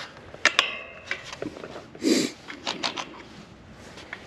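A portable work light's metal mount knocking against a metal fence rail as it is stuck on. Two sharp clanks with a brief ringing come about half a second in, then a short scuff around two seconds and a few lighter taps.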